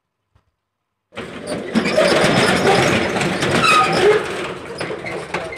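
Steel rolling shutter being pushed up, its slats rattling and grinding in the guides with brief metallic squeals; it starts suddenly about a second in and eases off near the end.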